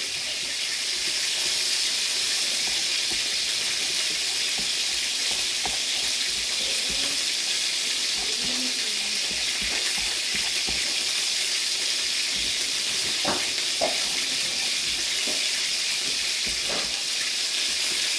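Hot oil in a skillet turned down to low, sizzling steadily, with a few light clicks of forks on a cutting board as chicken is shredded.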